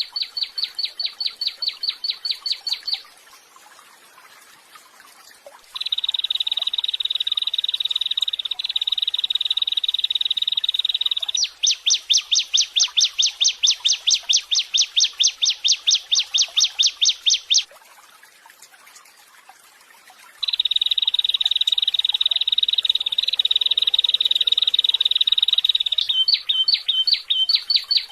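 Looped songbird calls from a masteran tutoring recording for songbirds. They alternate between fast runs of identical sharp chirps, about eight a second, and steady buzzing trills lasting several seconds, with short pauses between the phrases.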